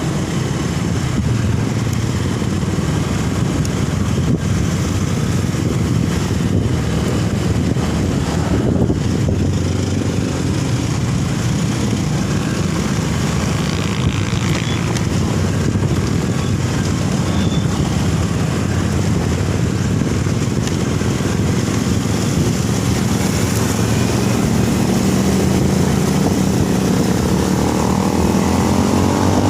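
Steady engine and road noise from a moving vehicle.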